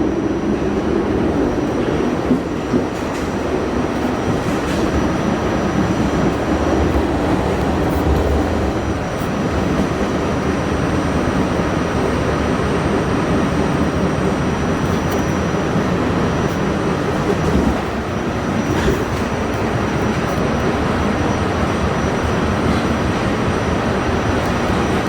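R68A subway car running along the track, a steady rumble and rush of noise with a faint high whine. A few sharp clicks of the wheels over rail joints come at scattered moments.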